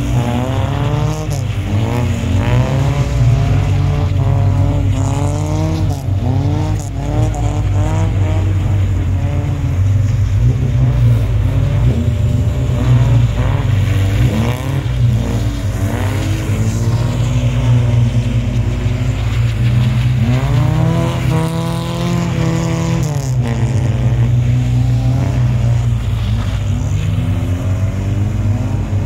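Engines of old Lada saloon cars revving up and down over and over as the cars drift, with one long rise, hold and fall of revs near the end, over a steady low rumble.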